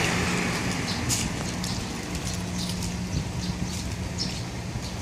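City traffic rumble with a steady low hum, a passing vehicle's noise fading over the first second, and many short, high bird chirps scattered throughout.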